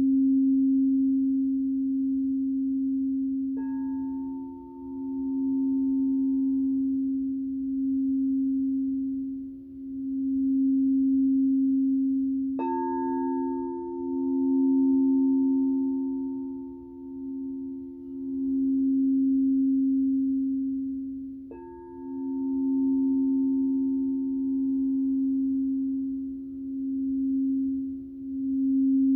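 Frosted crystal singing bowl sung by circling a mallet around its rim: one steady low, pure tone that swells and fades in slow pulses. Three times, about nine seconds apart, a higher ringing bowl tone is struck and slowly dies away over it.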